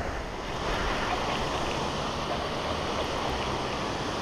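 Steady outdoor rush of wind on a GoPro's microphone, with a low, uneven rumble.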